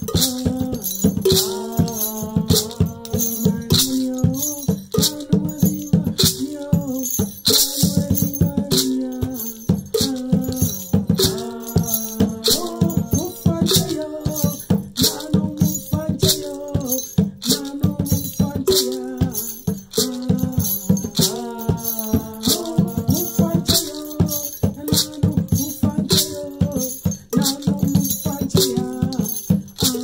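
Drum and rattle beaten in a steady rhythm under a single voice singing a chant-like song.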